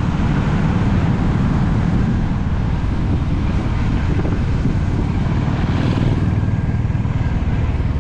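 Motorcycle riding along: steady engine rumble mixed with heavy wind noise on the microphone.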